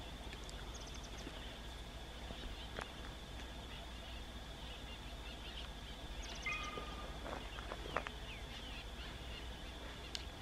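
Quiet rural ambience: a steady high-pitched drone, with a few short bird calls about six and a half to eight seconds in, over a faint steady low rumble. The distant approaching train is not clearly heard.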